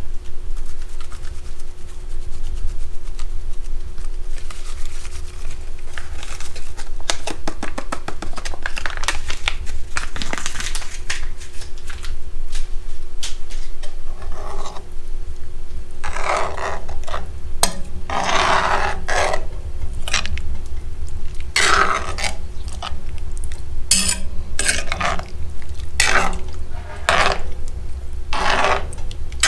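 Metal spoon stirring chili in a cast-iron Dutch oven, scraping against the pot in a run of quick, irregular strokes from about halfway through, over a steady low rumble.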